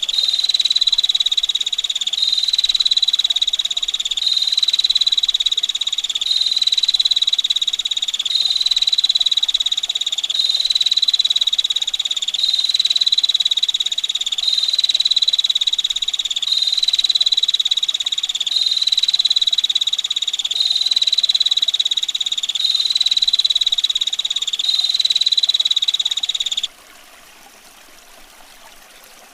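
Female prinia (prenjak betina) giving a long, rough, rapid rattling trill, repeated in even roughly two-second phrases without a break. It cuts off suddenly near the end, leaving a quieter background of trickling water.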